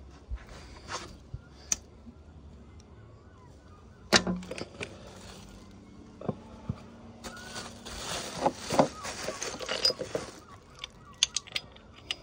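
Metal parts of a Suzuki RM85 two-stroke engine being handled and fitted on its crankcases: small clicks and clinks, one sharp metallic knock about four seconds in with a short ring after it, then a few seconds of hissing rustle and more light clinks near the end.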